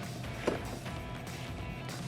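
Quiet background music, with one soft knock about half a second in.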